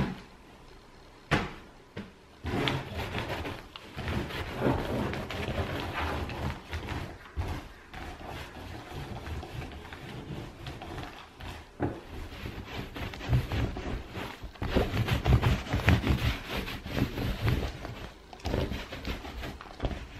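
Fabric rustling and soft thumps of throw cushions being handled, plumped and set on a corduroy sofa, irregular and busiest near the middle and again toward the end.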